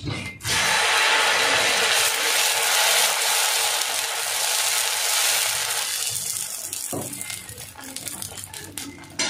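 Hot iron dosa tawa sizzling loudly, starting about half a second in and dying down about six seconds in as batter is poured and spread with a ladle; a single knock near the end.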